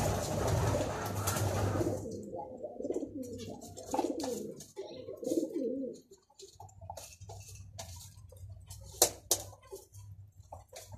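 Racing pigeon cooing in low warbling phrases, after a short rushing noise with a low hum at the start. From about six seconds in come scattered light clicks and taps, one sharper click near nine seconds.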